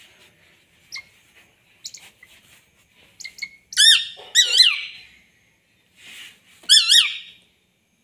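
Hawk giving shrill, squealing calls, each rising then falling in pitch: a pair about four seconds in and another near the end, with softer short calls before them.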